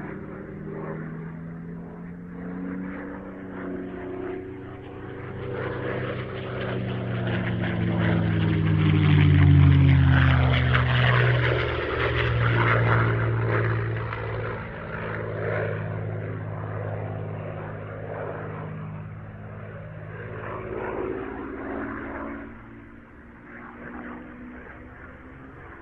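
Propeller aircraft's piston engine passing by: the drone grows to its loudest about ten seconds in, its pitch falling as it goes past, then settles into a steadier, quieter drone.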